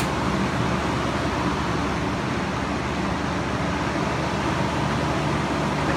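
Steady background rumble and hiss with a low hum, unchanging and with no distinct events.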